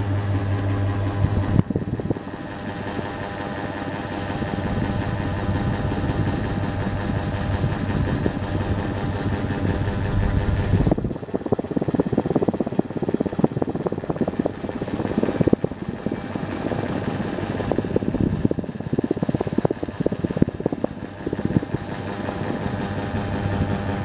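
Niga FC05-50 18-inch mini ceiling fan running, with a steady motor hum at the start and again near the end. Through most of the middle the hum gives way to a rough, crackling rush.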